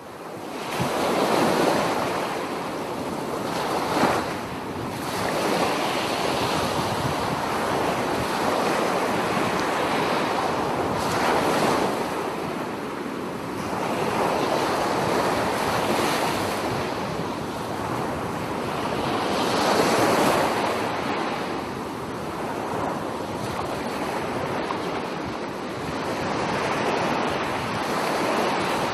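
Sea surf breaking on a sandy beach, a steady wash that swells and eases every few seconds, with wind buffeting the microphone.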